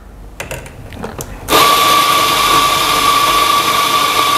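Electric espresso grinder running, grinding coffee beans into a portafilter held in its fork: a few light clicks, then about a second and a half in the motor starts with a steady whir and a high hum.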